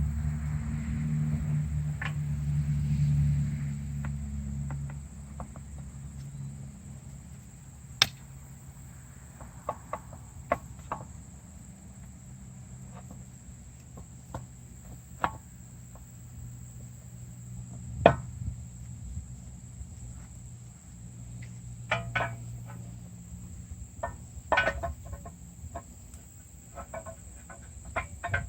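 Scattered sharp metallic clicks, knocks and short rattles of hand-handled truck axle parts and tools, over a low steady hum and a faint high steady whine. The two loudest knocks come about 8 and 18 seconds in.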